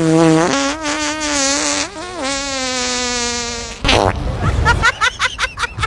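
Fart noise: a long pitched, wavering blurt lasting nearly four seconds, then a sudden burst and a quick run of short sputters.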